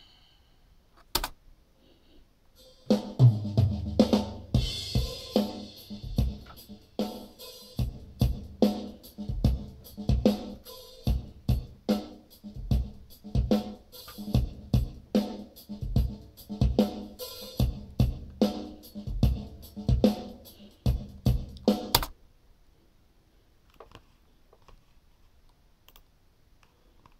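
Recorded drum kit played back through a dbx 1046 quad compressor/limiter on the drum bus. A single click about a second in, then a drum groove of kick, snare and cymbals starting about three seconds in and stopping abruptly near the end.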